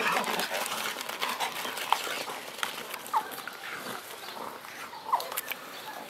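Two grey wolves fighting: rough snarling and scuffling noise, with a few short high yelps about two, three and five seconds in.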